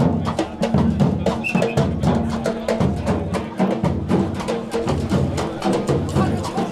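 Percussion music from a drum group beating large barrel-shaped drums with sticks in a fast, even rhythm over a deep bass.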